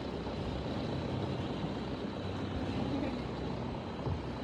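Longtail boat engine running steadily, a low even drone with no sudden changes.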